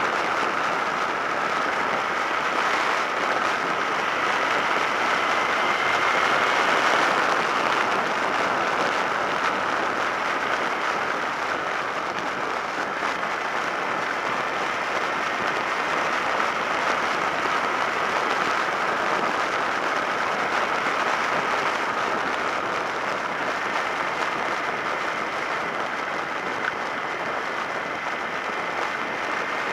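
Steady wind rush and road noise over a helmet-mounted action camera's microphone on a motorcycle at road speed.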